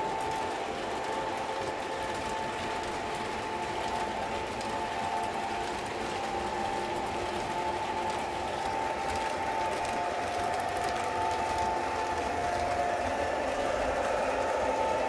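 O gauge model trains running on the layout: a steady whirring hum from their electric motors and wheels rolling on the track. The hum drops a little in pitch and grows slightly louder near the end.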